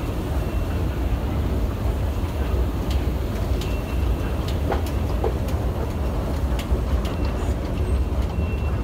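Steady low rumble of an Underground station concourse and escalator, with scattered clicks and footsteps of passengers walking.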